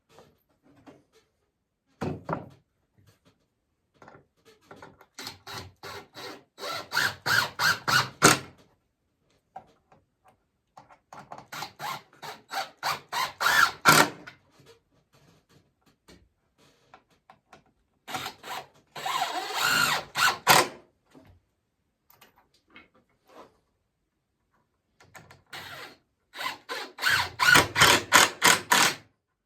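Cordless drill driving self-starting screws into wooden picket boards in four separate bursts, each a rapid pulsing run that ends when the screw seats.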